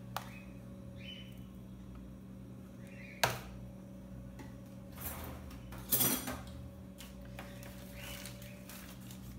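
Kitchen handling sounds over a low steady hum: a sharp tap about three seconds in as a plastic container of grated cheese is set down on the counter, then two short rustling knocks of utensils around a glass mixing bowl.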